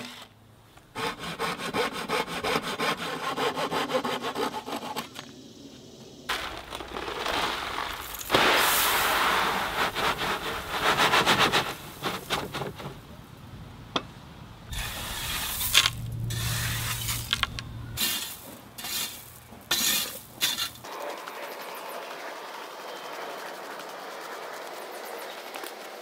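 A cordless drill driving screws into wooden form boards, followed by gravel being shoveled and raked across a slab form, with coarse scraping and rubbing in several stretches.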